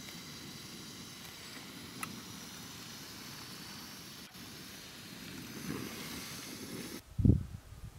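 Steady hiss of a gas-cartridge camping stove burner running under a pot, with a faint click about two seconds in.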